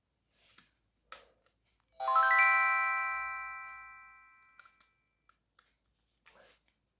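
Power-on melody of an old ZTE CDMA feature phone: a quick rising run of bell-like notes about two seconds in, ringing on and fading away over a couple of seconds. A few faint clicks of the phone being handled come before it.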